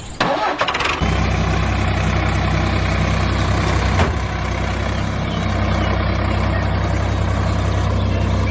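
Vehicle engine idling: a steady, even low hum, after a short burst of noise in the first second.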